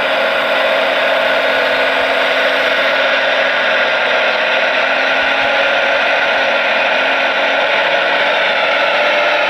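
Radio-controlled model vehicle running with a steady, loud mechanical whir from its electric drive.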